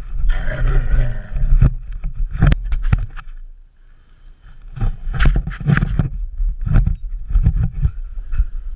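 Scuffing, knocks and thuds picked up by a GoPro strapped to a Labrador retriever as the dog moves about on carpeted stairs. It opens with a rubbing scuffle, then comes a quick cluster of sharp clicks, a short lull, and a run of thuds and clicks.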